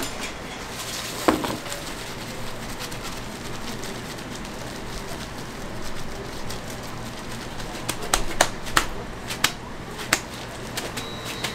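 Kitchen background noise with a steady low hum, broken by sharp clacks of utensils: one about a second in, then several in quick succession near the end.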